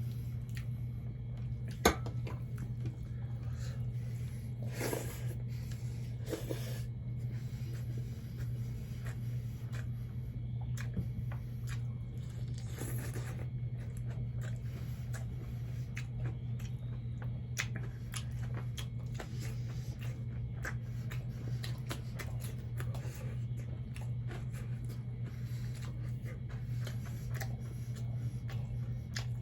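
Close-miked eating of fried catfish with rice: wet chewing and squishing with scattered small clicks and crunches, and one sharp click about two seconds in. A steady low hum runs underneath.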